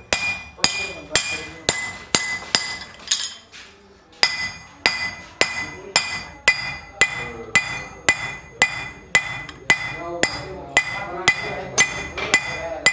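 Hand hammer beating an unheated steel chef's knife blade on a metal anvil block, with a steady series of ringing metallic blows about three a second. There is a short pause about three seconds in, then the blows resume.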